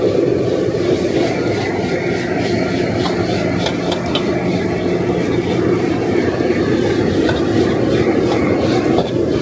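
Gas wok burner and range hood making a steady, loud rush. Over it, a metal ladle and spatula scrape and clink against a steel wok as noodles are stir-fried.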